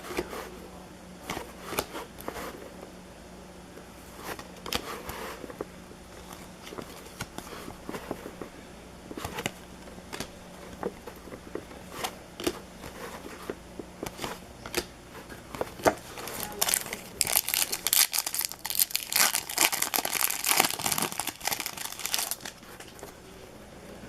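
Baseball card packs being handled and torn open: scattered light rustles and taps, then from about 16 seconds in a dense run of loud crinkling and tearing as a pack wrapper is ripped open.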